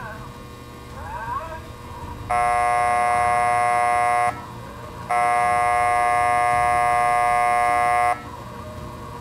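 Horn of an American Flyer Santa Fe PA/PB model diesel locomotive sounding two long, steady, buzzy blasts, the first about two seconds and the second about three seconds long.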